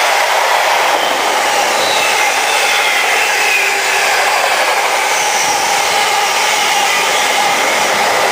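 Container wagons of an intermodal freight train passing at speed: a loud, steady rushing noise of wheels on rail with faint whistling tones above it.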